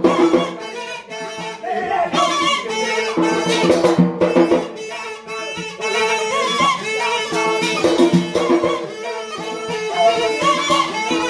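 Live Yemeni dance music: a mizmar reed pipe plays a sustained, ornamented tune over steady drum beats.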